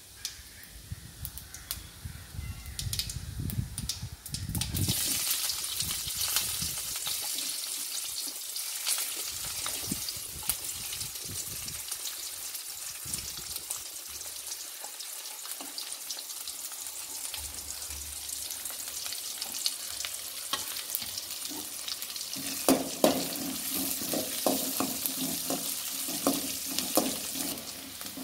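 Chopped onions sizzling in hot oil with cumin seeds in an aluminium kadai; the sizzle starts suddenly about five seconds in, after a few faint crackles of cumin. Toward the end a metal spatula scrapes and clicks against the pan as the onions are stirred.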